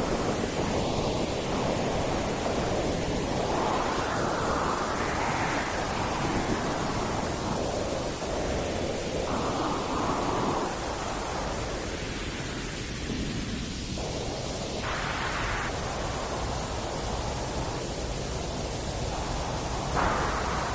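Steady white noise, a continuous rushing hiss whose middle tone shifts slowly, of the kind played to lull a baby to sleep as a stand-in for the sounds heard in the womb.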